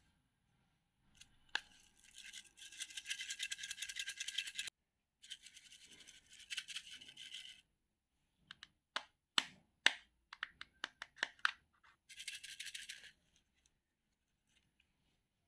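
Slime being worked by hand: three runs of rapid, rhythmic crackling strokes, with a string of sharp pops and clicks between them.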